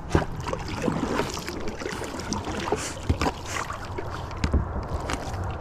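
Paddling a small boat across pond water: paddle dips and splashes, with scattered light knocks and clicks against the boat.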